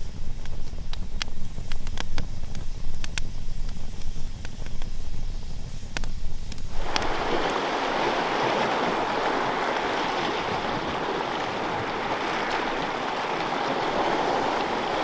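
Wood campfire crackling, with many sharp, irregular pops over a low rumble. About seven seconds in it cuts suddenly to a steady rush of water, with lake waves washing against a rocky shore.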